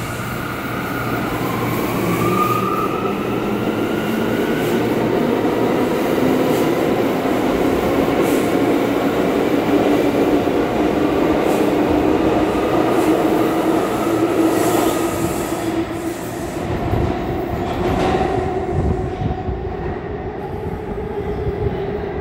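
Bombardier R179 subway train accelerating out of the station: its traction motors whine in several tones that rise slowly in pitch over the rumble and clatter of wheels on rail. The sound eases off after about sixteen seconds as the last car pulls away into the tunnel.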